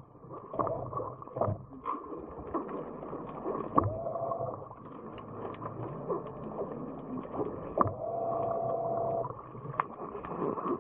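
Underwater sound of a BlueROV's electric thrusters: two short steady whines, about four seconds in and again near eight seconds, the second lasting over a second, among scattered clicks and knocks.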